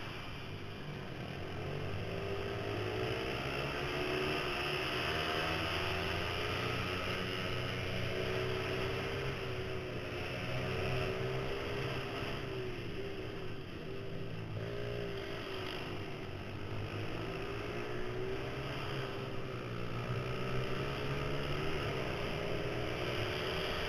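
Mini supermoto pit bike's small single-cylinder engine, heard from the rider's helmet camera, its revs rising and falling continuously as it is ridden hard through a run of corners.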